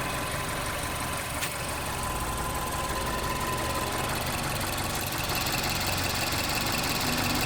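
2011 Mazda CX-7's 2.3-litre turbocharged four-cylinder engine running steadily, recorded for an engine noise whose cause is not named. A single sharp click sounds about a second and a half in.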